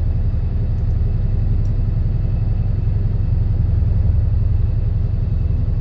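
Steady low drone of a fishing boat's engine running under way, heard from inside the wheelhouse.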